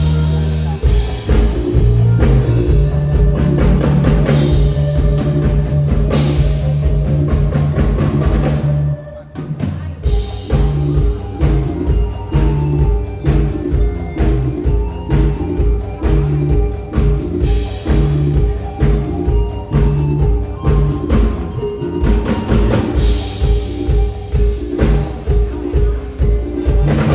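Band music with a steady, even drum beat over a bass line. The music drops out briefly about nine seconds in, then the beat comes back.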